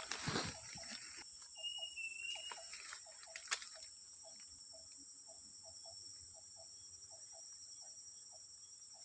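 Rainforest ambience: a steady high-pitched insect drone with short paired calls repeating about twice a second. A single drawn-out whistled bird note comes about two seconds in. Rustling comes near the start, with a sharp snap a few seconds in.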